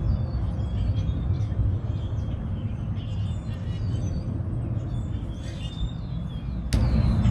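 Small birds chirping in short, high calls over a steady low rumble. The rumble turns abruptly louder near the end.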